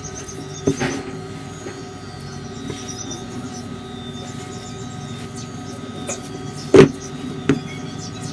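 A hand kneading soft flour dough in a glass bowl, with three sharp knocks of the glass bowl: one about a second in and two near the end, the first of those two the loudest. A steady hum runs underneath.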